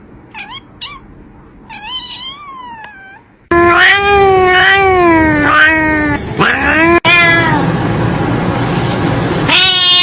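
Cat meowing: a few short, quiet meows, then from about three and a half seconds in much louder, long drawn-out meows that waver in pitch.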